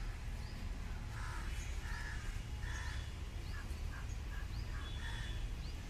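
Crows cawing, a run of short repeated calls that come faster in the second half, with a few faint high bird chirps and a steady low rumble underneath.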